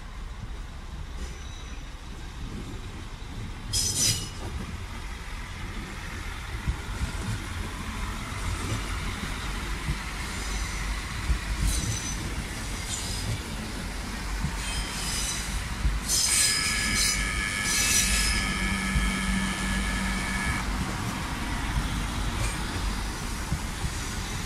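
Red diesel multiple unit (Alstom Coradia LINT) rolling slowly past over curving track and points, its wheels rumbling steadily. Its wheel flanges squeal: briefly about four seconds in, faintly now and then, and loudly in a high, many-toned squeal that lasts about four seconds near the two-thirds mark.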